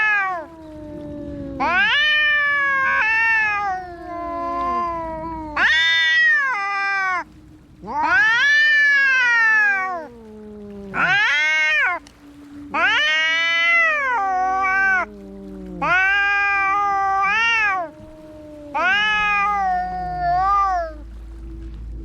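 Cats fighting: a run of long, drawn-out yowls, about one every two seconds, each rising and then falling in pitch, over a steady low tone.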